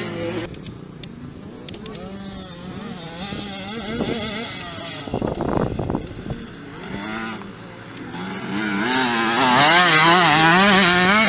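Small youth motocross bikes' engines revving on a dirt track, the pitch climbing and dropping again and again as the riders work the throttle. There is a brief loud burst about halfway, and the engine is loudest and most wavering near the end.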